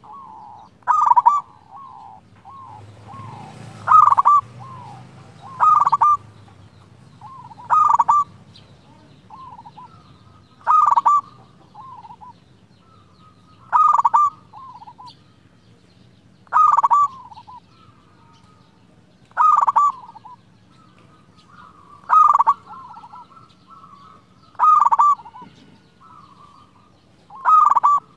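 Zebra dove (perkutut) cooing its song phrase over and over, a short run of clear coo notes about every three seconds, with fainter coos in between.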